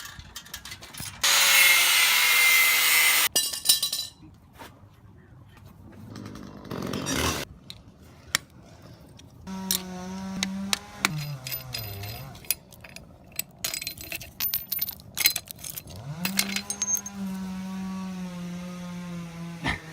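A chainsaw: a loud burst of cutting noise, a shorter burst a few seconds later, then the engine running at high speed with its pitch dipping and climbing back several times.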